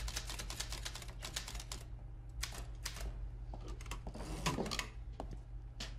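Manual typewriter being typed on quickly: a run of uneven key clacks over a steady low hum.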